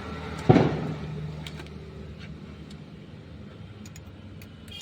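A single sharp knock about half a second in, over a steady low hum with a few faint ticks.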